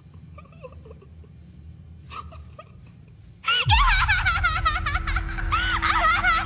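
A girl's soft giggles, then about three and a half seconds in a sudden burst of loud, high-pitched laughter. A deep boom marks its start and a steady low tone runs under it.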